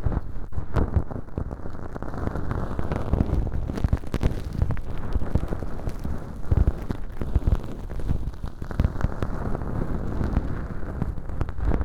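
Bonten feather earpicks brushing inside both artificial ear canals, which are lined with velcro and packed with dry fake earwax. The result is a continuous, dense, scratchy rustling full of fine crackles, close on the microphones.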